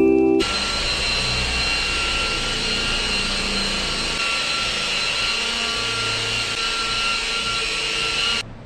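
Electric car polisher with a foam pad running steadily while buffing car paint, a constant motor whine. It starts abruptly about half a second in and cuts off just before the end.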